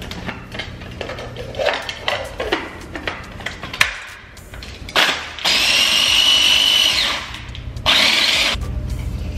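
Small electric food processor pulsing to grind Oreo cookies into crumbs for a pie crust: one run of about a second and a half, then a short second pulse.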